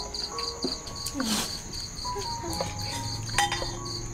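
Crickets chirping in a steady pulsing rhythm, about four chirps a second, over soft background music of slow held notes, with a couple of brief clicks.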